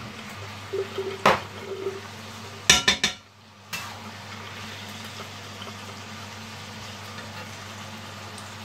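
Metal spatula stirring minced meat and tomato sauce in a frying pan, scraping and knocking against the pan, with a sharp clink about a second in and a quick cluster of clatters about three seconds in. A low steady hum runs underneath.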